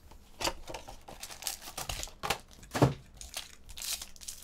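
Crinkling and tearing of trading-card packaging as a Bowman Chrome hobby box is opened and a foil card pack is taken out: a string of irregular crackles and rustles, the sharpest snap nearly three seconds in.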